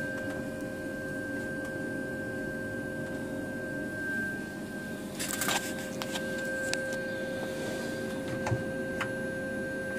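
Embraer E-Jet cockpit avionics running on battery power during the built-in test: a steady electrical hum with two steady whining tones, one mid and one high. A few short clicks come between about five and nine seconds in.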